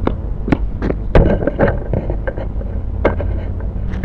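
Irregular sharp knocks and clicks close to a small quadcopter's onboard camera microphone, over a steady low rumble, as the upturned quadcopter is reached for by hand; the loudest knock comes about a second in.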